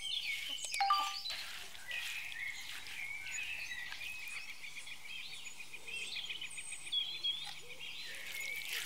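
Several wild birds chirping and singing, with one giving a rapid, even trill from about two seconds in. A few soft handling sounds of raw chicken and vegetables being mixed by hand come through in the first second and a half.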